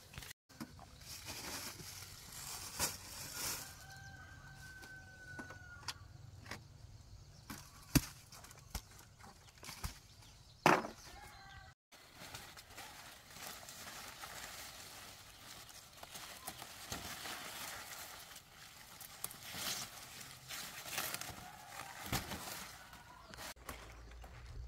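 Chickens in a farmyard, with what sounds like a rooster crowing once about four seconds in. Scattered knocks run through it, and there is a loud, sudden sound near the middle.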